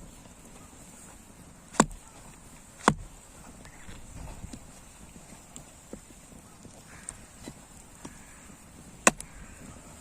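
Three sharp, loud knocks, two about a second apart and a third several seconds later, over a low background with a few faint ticks.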